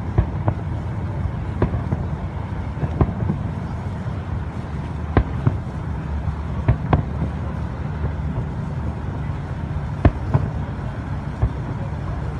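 Fireworks bursting across the river: about a dozen sharp bangs at irregular intervals, the loudest about ten seconds in, over a steady low rumble.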